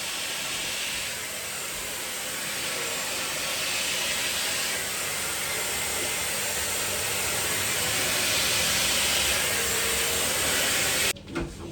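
Hair dryer blowing steadily, cutting off suddenly near the end.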